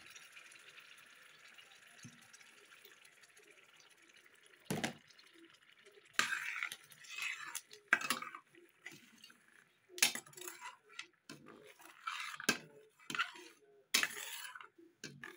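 Tomato purée being stirred into hot oil and onions in a stainless-steel pot with a metal spoon: a faint sizzle at first, then the spoon knocking and scraping against the pot through the wet sauce, with sharp clinks every second or two.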